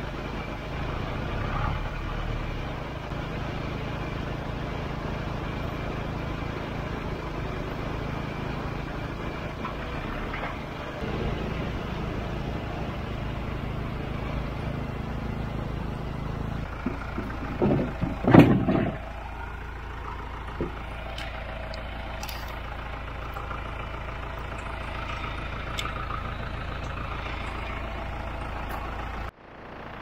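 Engine running steadily, with a short clatter of loud knocks a little past the middle.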